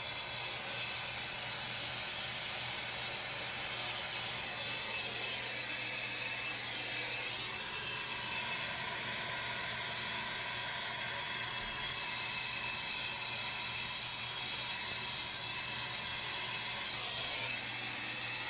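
Plumbing torch flame hissing steadily, as it heats a copper joint for soldering.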